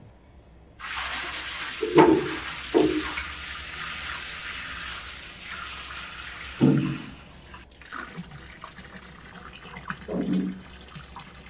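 Water running from a hose into a steel dough-mixer bowl, a steady hiss that starts about a second in and stops sharply partway through. A few dull thumps are heard over it and once more near the end.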